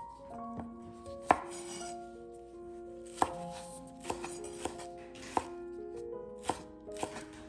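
Chef's knife cutting scallions on a wooden cutting board: separate sharp knocks of the blade on the board, a few in quick succession from about four seconds in, over soft background music.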